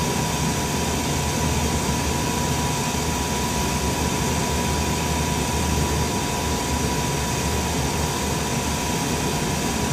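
Steady, unchanging hum and hiss of machinery running in a jet's cockpit during a ground test, with a low rumble and a constant high whine over it.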